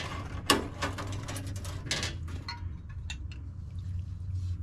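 Metal carburetor parts and the parts basket clinking and knocking as they are lifted out of an ultrasonic cleaner tank, over a steady low hum.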